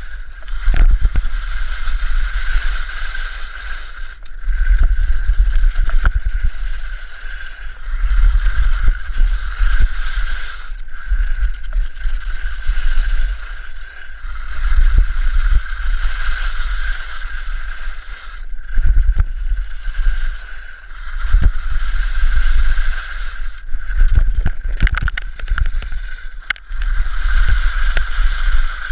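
Wind buffeting an action camera's microphone during a ski descent, swelling and easing every few seconds, with skis scraping over the snow and scattered sharp knocks.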